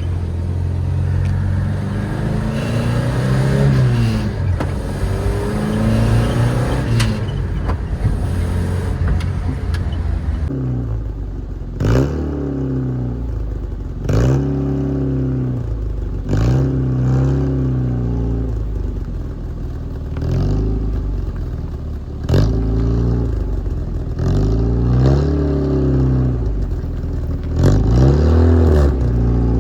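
A 1965 Volvo PV544 Sport's B20 four-cylinder engine running through an exhaust with one of its two mufflers deleted. The engine runs fairly steadily at first. From about a third of the way in it is revved over and over, its pitch rising and falling about every two seconds.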